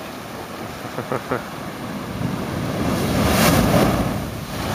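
Ocean surge forced up through a rock blowhole: a rushing noise that builds from about two seconds in to a loud hissing whoosh as the spout of water and spray shoots up, then eases slightly near the end.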